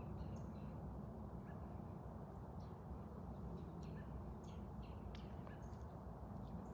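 Faint outdoor background: a steady low rumble with scattered faint short ticks and chirps.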